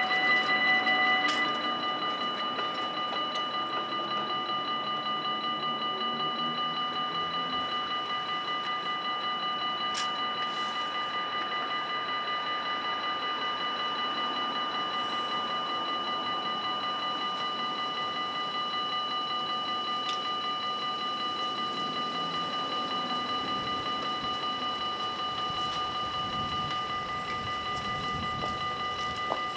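Dutch level-crossing warning bells ringing in a fast, even, steady rhythm while the crossing is closed to road traffic. The ringing drops in level and some of its tones fall away about a second and a half in.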